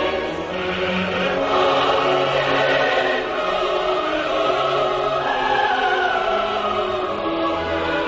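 Classical choral music: a choir singing long held notes.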